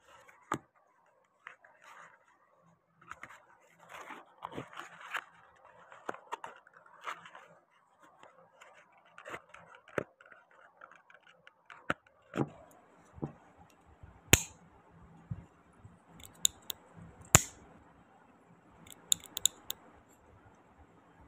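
Hands pulling apart stiff plastic card frames and peeling rubbery silicone molds free: scattered scraping and rustling, with several sharp plastic clicks in the second half, two of them loudest about three seconds apart.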